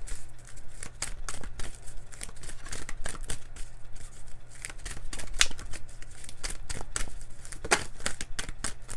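Deck of oracle cards being shuffled by hand, a rapid, irregular run of crisp card clicks and flicks.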